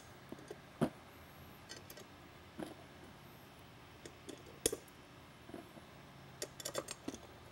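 Light clicks and taps of small metal screws and the polycarbonate front lens panel being handled and seated on an aluminium floodlight housing. There is a sharper knock about a second in, another about halfway through, and a quick run of clicks near the end.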